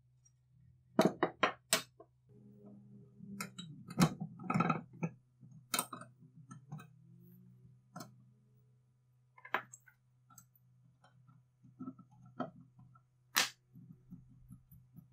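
Sharp clicks, taps and clinks of hard metal parts and tools being handled, with a quick run of four knocks about a second in and a single loud click near the end, over a faint steady hum.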